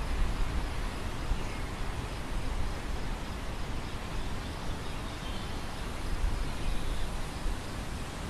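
Wind over an open grain field: a steady rushing noise with a gusty low rumble.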